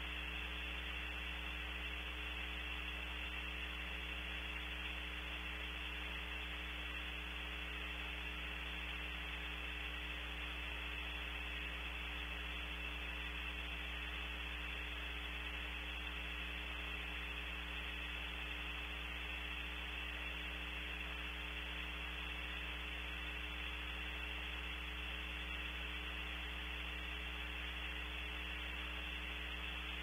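Steady electrical hum and hiss from a nest camera's audio feed, with a low mains hum, a few fixed tones and a thin high whine near the top of the hiss, unchanging throughout.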